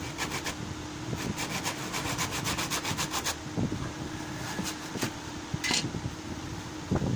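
Quick, even strokes of a hand tool rubbing and scraping along the wooden handle of a cricket bat, about six a second for two seconds, then a few single strokes: the new handle being shaped to fit the blade. A steady fan hum runs underneath.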